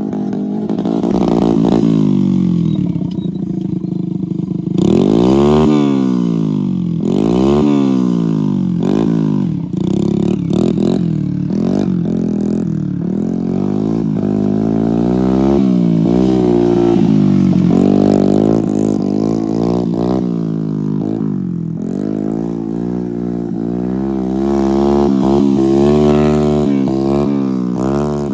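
Small motorcycle engine revving up and down over and over, its pitch rising and falling every second or two, with some quicker blips.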